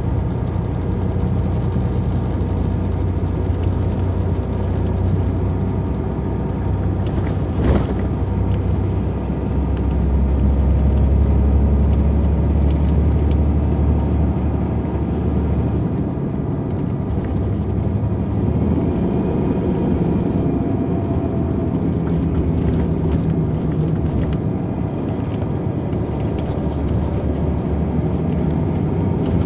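2002 MCI D4000 coach's Detroit Diesel Series 60 diesel engine running, heard from on board the bus, with a sharp click about 8 seconds in. The low engine drone grows heavier from about 10 seconds in and eases back a little after 16 seconds.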